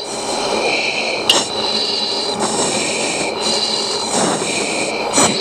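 F-16 cockpit audio taken from the intercom: a steady rushing cockpit noise, with breaths through the oxygen mask coming and going about every two seconds as the crew strain against the G's of a hard turn. Two sharp clicks, about a second in and near the end.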